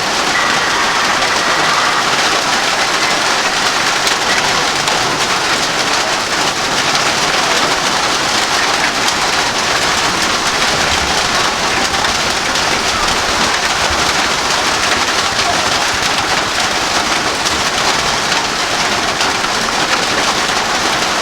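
Steady heavy rain falling on surfaces, an even continuous hiss.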